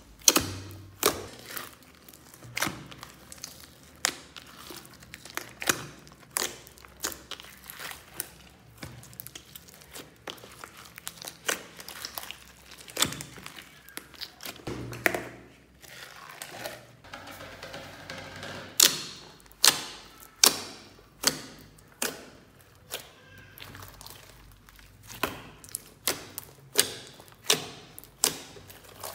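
Hands squeezing and kneading a large mass of glossy mixed slime, making wet squelches with irregular clicking pops as air pockets burst, some sharper and louder than others.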